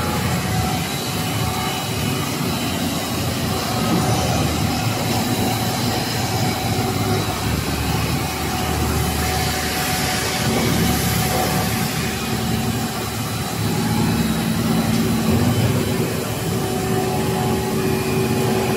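Three-layer cast stretch film extrusion line running: a steady mechanical hum of extruder drive motors and fans, with a few faint constant whines above it.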